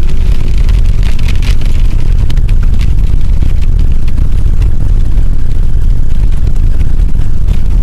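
Car driving through a hailstorm, heard from inside the cabin: a loud, steady low rumble of the car on the road with many scattered sharp ticks of small hailstones striking the car's body and windows.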